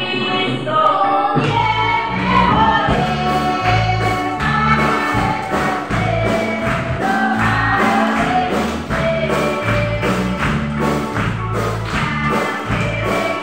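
Gospel worship music: a group of voices singing over a bass line and a steady percussion beat, the bass coming in about a second and a half in.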